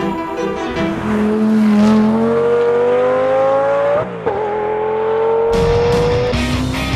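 A car engine accelerating hard, its pitch climbing, dropping sharply at an upshift about four seconds in, then climbing again. Loud strummed electric-guitar music comes in near the end.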